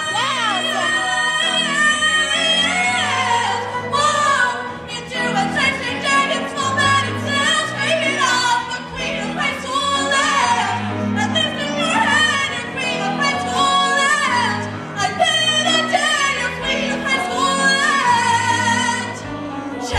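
A woman singing a Broadway-style musical-theatre song, with a trio of backing singers and piano accompaniment.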